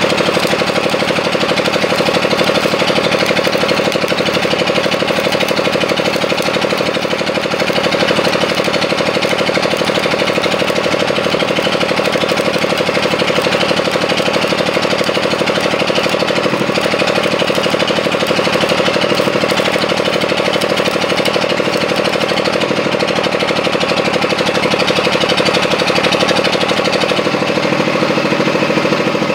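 An engine runs steadily with a rapid pulsing, under the crackle and hiss of stick (arc) welding on the steel excavator bucket; the welding stops near the end while the engine keeps running.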